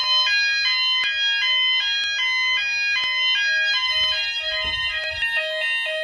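Several fire alarm sounders of an Apollo/Hochiki addressable system sounding together in alarm. Each plays its own tone that switches pitch several times a second, and the sounders are out of step, so the tones overlap in a loud, high jumble.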